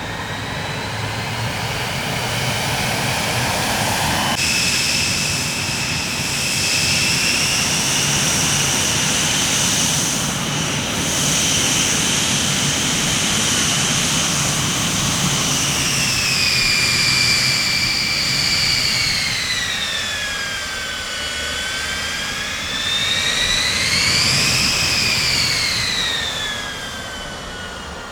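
Jet aircraft engines running with a high turbine whine over a low rumble; the whine holds steady, then sinks and rises again in pitch in the second half before the sound eases off near the end.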